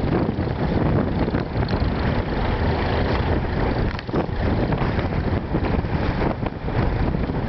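Vintage Fordson tractor engines running under load while ploughing, with wind buffeting the microphone.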